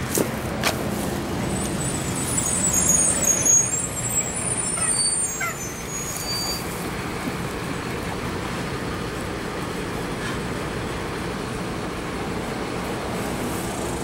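Steady road traffic noise, swelling as a heavy vehicle passes, with a high brake squeal between about two and six seconds in.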